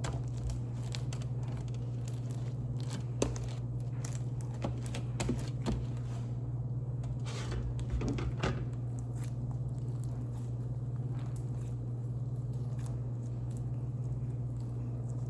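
Sticky homemade slime being scraped off a tray and kneaded by hand, with small irregular clicks and crackles as it pulls apart. A steady low hum runs underneath.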